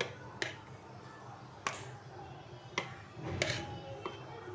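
A spoon tapping and scraping against a mixing bowl as yogurt is stirred into a chunky mixture: four sharp taps spread about a second apart, with a short softer scrape around three seconds in.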